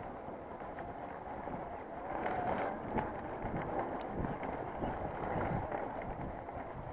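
Wind rushing over the camera microphone as a mountain bike rolls fast along a wet dirt trail, with tyre noise and a few short knocks and rattles from the bike over bumps.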